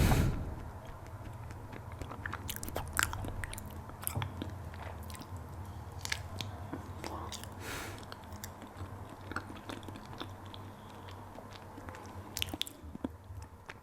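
Close-miked chewing and wet mouth sounds of someone eating, with many scattered sharp clicks, over a low steady hum.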